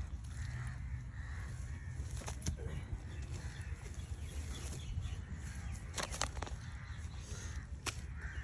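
Spade blade striking and scraping into wet soil several times, as an irrigation channel is cut open, with birds calling in the background.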